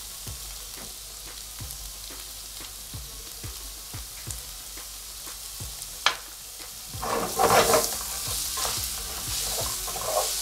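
Diced potato and mixed vegetables frying in olive oil in a granite-coated pan, a steady sizzle under the small scrapes of a wooden spatula stirring them. A sharp knock about six seconds in, then a spell of louder stirring, after which the sizzle is a little stronger.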